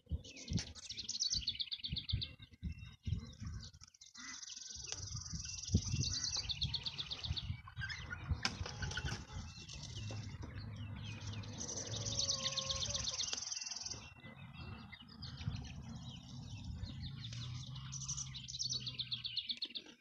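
Birds chirping in rapid, high-pitched trills that come in bursts of a second or two, over the quieter rustling and clucking of a backyard chicken flock.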